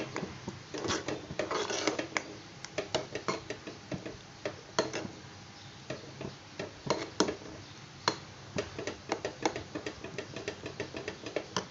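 Spoon stirring a thick mango and cornflour pudding in a non-stick pot, with irregular clicks and knocks of the spoon against the pot. The mixture is being stirred without pause so the cornflour cooks and does not stick to the bottom.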